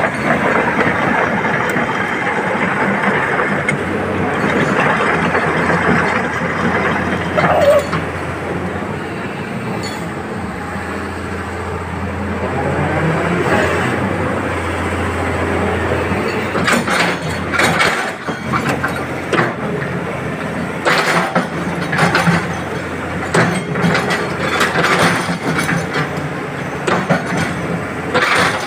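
Hitachi EX200-5 hydraulic excavator running on test after a repair: its diesel engine hums steadily, and in the second half repeated metal clanks and knocks join in as the machine is worked.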